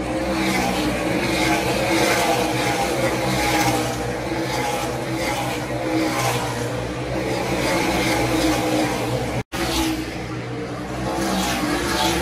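NASCAR Cup Series stock cars' V8 engines racing round the track: a loud, continuous engine drone that swells and eases a little as the cars pass. About nine and a half seconds in, the sound drops out completely for an instant.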